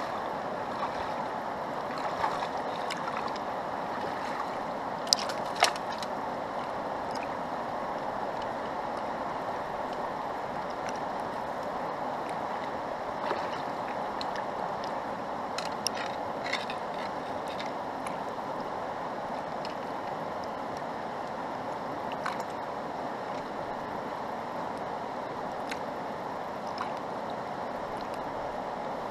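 Fast-flowing river water rushing steadily, with a few sharp clicks over it, the two loudest about a second apart around five seconds in.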